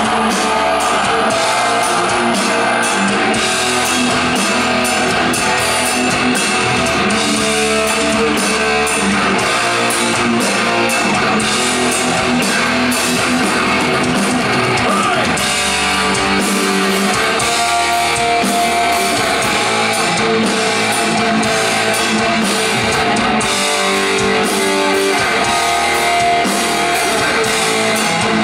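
Doom/gothic metal band playing live, heard loud from within the audience: a guitar-led passage of sustained distorted chords over bass and drums.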